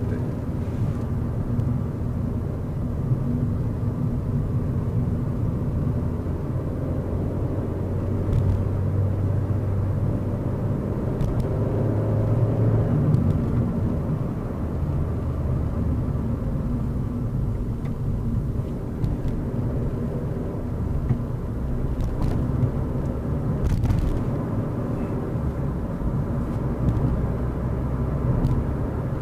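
Suzuki Swift Sport's 1600 cc four-cylinder engine and tyre rumble heard inside the cabin while cruising. The engine note climbs a little about ten seconds in and drops back a few seconds later.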